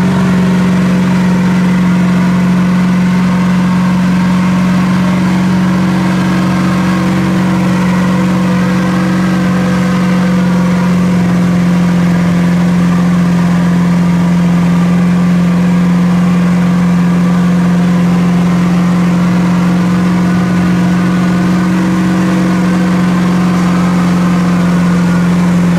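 A mega mud truck's engine held at high revs in a loud, steady drone while its tires, 60 inches and over, spin in deep mud and dig the truck down.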